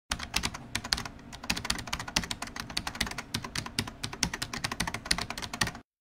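Rapid typing on a computer keyboard: many irregular key clicks a second, stopping abruptly near the end.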